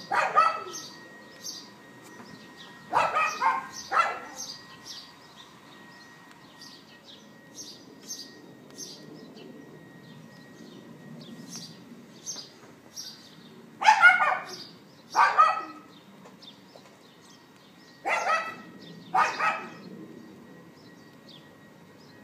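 A dog yapping repeatedly: one bark at the start, then barks in pairs, one pair a few seconds in and two more in the second half, with long pauses between. Small birds chirp throughout.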